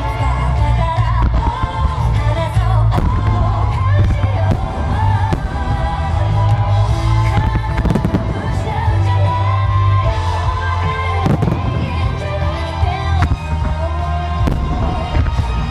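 Aerial fireworks bursting with sharp bangs at irregular intervals over a loud pop song with a steady heavy bass and melody.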